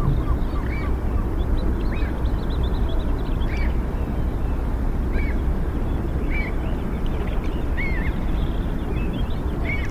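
Birds calling over a steady low rushing background, with short calls repeating every half second to a second.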